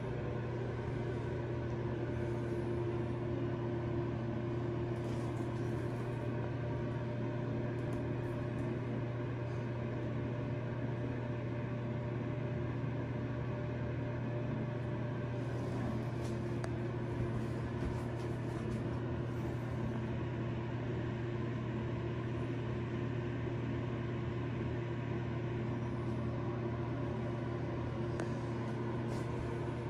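Steady low mechanical hum that holds level and pitch without change.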